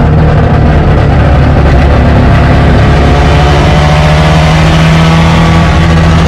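Four-rotor Mazda 26B rotary engine of a Holden FJ, heard from inside the cabin while driving on track. It runs loud at a fairly steady pitch.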